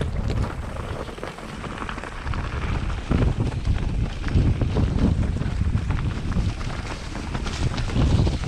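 Wind buffeting the microphone of a mountain bike riding fast down a dirt forest trail, with tyres crunching over dirt and stones and the bike rattling in many short clicks.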